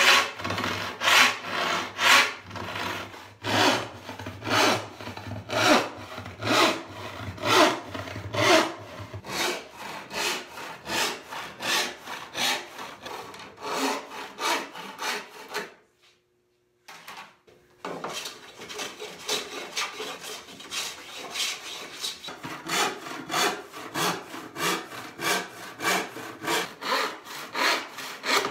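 Handsaw cutting through a walnut panel in steady back-and-forth strokes, about two a second. The sawing stops for about two seconds near the middle, then resumes a little faster.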